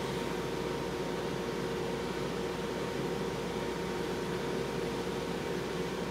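Steady machine hum and hiss with no change in pitch or level, from an appliance running in the room.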